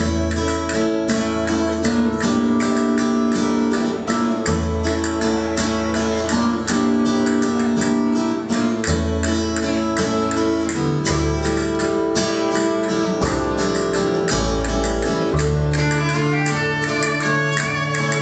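Live band music: a steadily strummed guitar over deep upright double bass notes that change every second or two, with a violin playing above.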